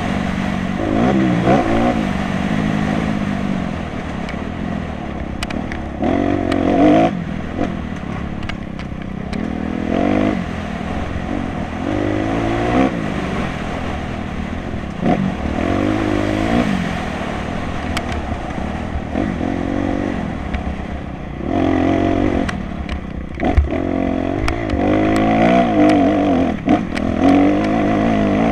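Dirt bike engine revving hard and dropping back again and again as the rider works the throttle and shifts over rough trail, its pitch rising and falling every second or two. Sharp knocks and clatter from the bike hitting bumps come through now and then.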